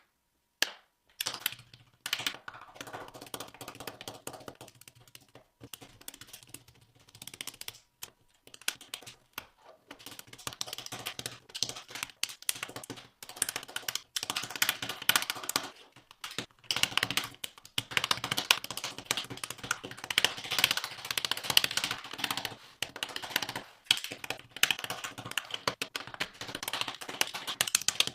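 Typewriter built from Lego bricks being typed on: its plastic keys and mechanism clack in irregular rapid runs with short pauses, busier and louder in the second half.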